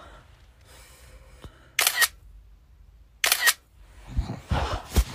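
Camera shutter clicks, twice, about a second and a half apart, followed by a few low thumps near the end.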